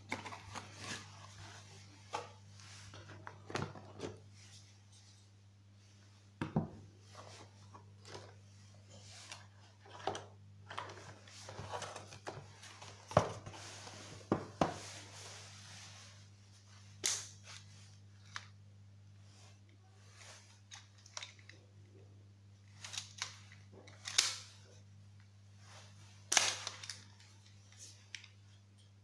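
Unpacking a Bosch PTK 3.6 LI cordless stapler from its cardboard box: rustling and handling of the box and parts, with scattered sharp clicks and knocks, the loudest ones in the second half.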